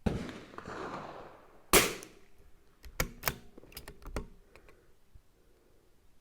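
A single shot from a CZ 457 bolt-action .22 LR rifle, a sharp crack, followed about a second later by a quick run of clicks as the bolt is worked to eject the case and chamber the next round. Before the shot, a rushing noise starts suddenly and fades away.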